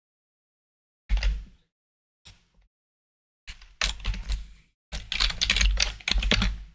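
Typing on a computer keyboard in several short bursts of rapid key clicks, the longest and loudest run near the end.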